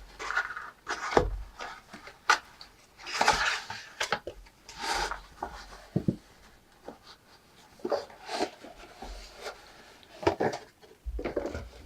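Watch packaging being handled by hand: irregular rubbing and scraping with scattered light knocks and clicks.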